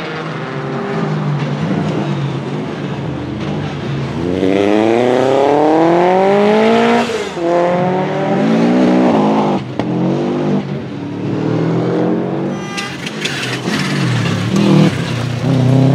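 Turbocharged flat-four boxer engine of a 1990 Subaru Legacy RS Group A rally car under hard acceleration. Its pitch climbs through the revs and drops sharply at each gear change, several times over, with a burst of sharp cracks about three-quarters of the way through.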